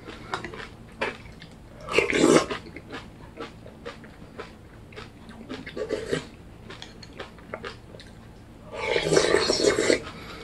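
Eating with a metal spoon from a ceramic bowl: light clicks of the spoon against the bowl and chewing. There is a short loud slurp about two seconds in and a longer slurp near the end as the bowl is drunk from.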